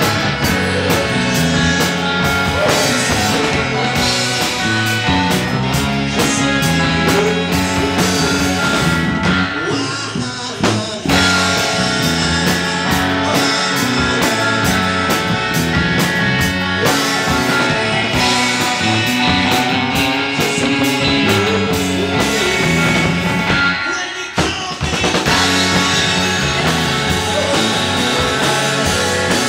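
Live rock band playing: drum kit, electric guitars and a Yamaha electric keyboard, with two brief breaks in the playing.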